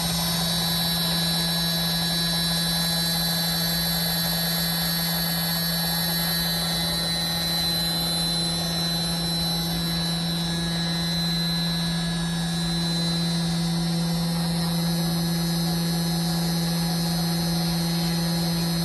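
CNC router spindle driving an HSD double-sided drilling aggregate head, running at speed with a steady low hum and a high whine.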